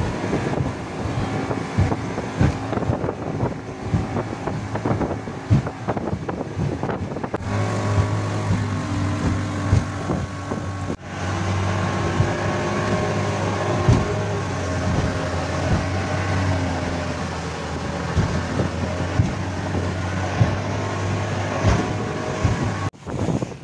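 Speedboat engine running at speed, heard from inside the canvas-covered cabin, with the hull slamming again and again on rough waves and wind on the microphone. A steady low engine hum stands out from about eight seconds in.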